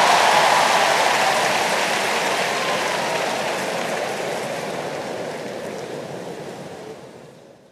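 Large crowd applauding, the clapping fading away gradually over several seconds.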